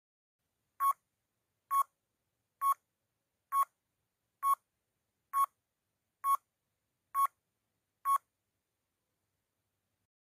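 Countdown timer sound effect: nine short electronic beeps, evenly spaced a little under a second apart, then they stop.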